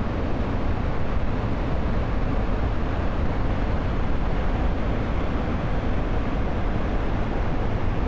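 Large waterfall in full flood: a steady, dense rush of falling water, heaviest in the low rumble.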